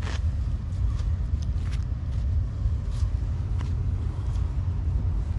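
Gloved hands scraping soil off a buried, corroded sword blade: a few faint scrapes and crumbles of dirt over a steady low rumble.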